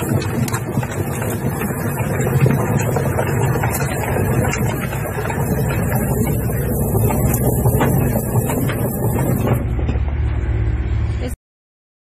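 Homemade chicken plucker driven by a washing machine motor, running at reduced speed: a steady low drone with many irregular clicks and knocks. It cuts off suddenly about eleven seconds in.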